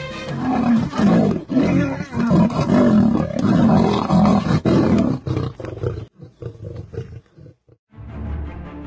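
Two male lions fighting, snarling and roaring loudly for about six seconds before the noise breaks up and dies away.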